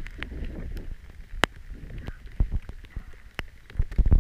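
A few scattered sharp taps and, near the end, a cluster of louder low knocks in a small fishing boat, over a low rumble of wind on the microphone.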